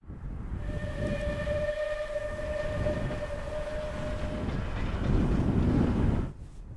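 Steam locomotive, the Bulleid 4-6-2 Pacific 34067 Tangmere, working hard with a heavy rumble while its whistle sounds one long steady note for about four seconds. About six seconds in, the train sound cuts off to quieter wind on the microphone.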